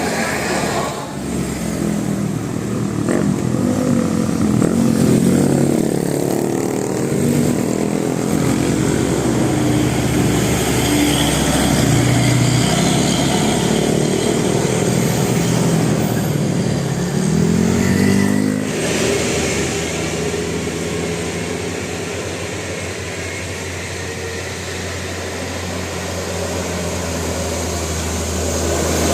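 Engines of passing road vehicles, rising and falling in pitch as they speed up and go by, with a steadier low engine drone in the last third.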